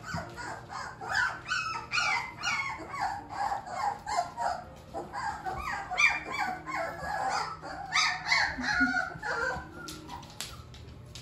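Young Shepsky puppies, about 19 days old, whimpering and squealing: a rapid run of short, high calls, most falling in pitch, that dies away in the last second or so.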